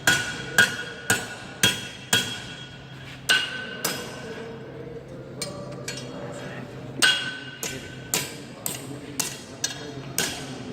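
Hand hammer striking iron being forged, in runs of roughly two blows a second with a pause of about three seconds midway. Each blow gives a sharp metallic ring.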